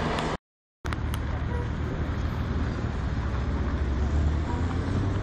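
Steady rumble of road traffic, cars and heavier vehicles passing. About half a second in, the sound cuts to dead silence for half a second and returns with a click.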